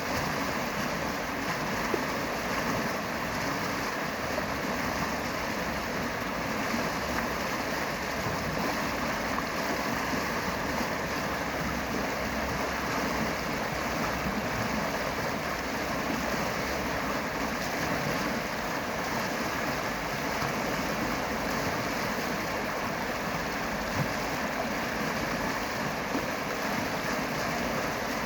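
Steady, unbroken rush of flowing water, like a stream or small cascade, holding an even level throughout.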